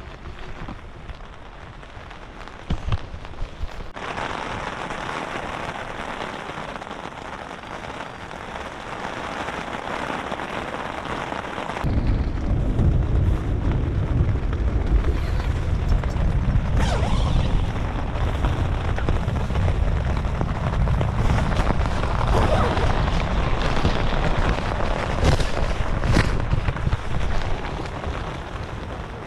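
Thunderstorm rain and wind beating on a tent, heard from inside, growing heavier about four seconds in. About twelve seconds in, a deep, loud rumble sets in and carries on until it eases near the end, with a few sharp cracks along the way.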